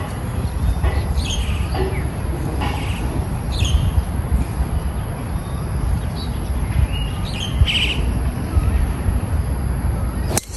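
Wild birds chirping in short, scattered calls over a steady low rumble, with one sharp click near the end.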